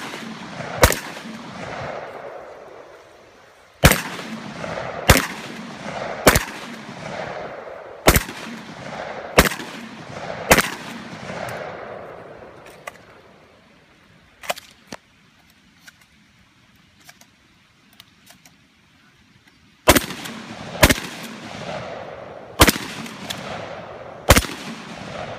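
Gunshots from a competitor running a 3-gun stage: about a dozen sharp shots, roughly one every second or so, each echoing off across the open range. A gap of several seconds in the middle holds only a few faint clicks before the last five shots come in quick succession.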